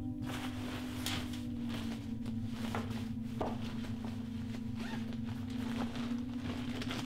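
Black nylon puffer jacket being handled and turned over, its fabric rustling in many short scrapes, over a steady low drone from background music.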